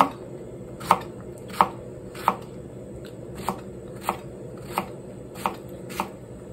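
Kitchen knife cutting a small eggplant into small wedge chunks on a plastic cutting board: eight sharp knocks of the blade striking the board, about one every two-thirds of a second.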